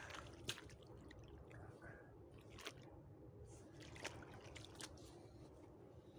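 Near silence, broken by a few faint clicks and small splashes from hands working in shallow water.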